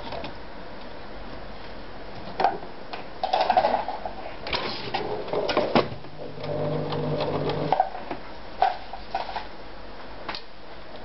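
Plastic-bodied sewing machine being handled and turned around on a table: a series of knocks and clicks, with a brief steady low hum about six seconds in.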